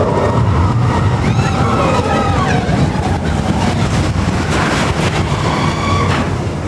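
Loud rumble and rush of an amusement ride in motion, with wind buffeting the microphone and riders' voices over it.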